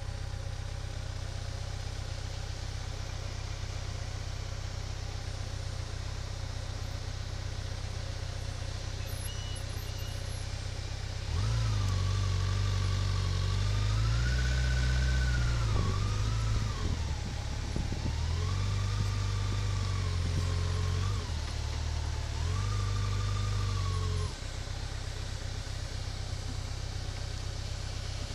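A motor vehicle's engine running steadily. About a third of the way in it grows louder for some 13 seconds, its pitch rising and falling in several swells as it revs under load, then it settles back to the steady hum.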